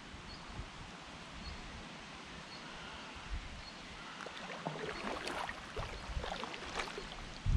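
Kayak paddle strokes in calm water: the Braca VII paddle blades dip in and pull through, with splashes and drips that grow busier about halfway in. A faint high chirp repeats about once a second.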